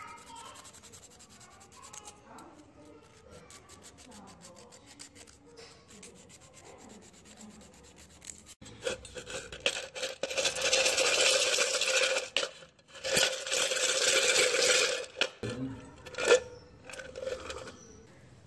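Metal power-tool parts being cleaned. Faint handling clicks come first, then a loud, steady scrubbing noise for about six seconds, broken once briefly. A few sharp knocks follow.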